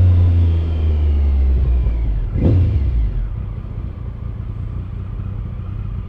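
Triumph Sprint ST's 955 cc three-cylinder engine heard from the rider's helmet, running steadily and then falling away after about two seconds as the bike slows toward a stop. A brief louder burst comes about two and a half seconds in.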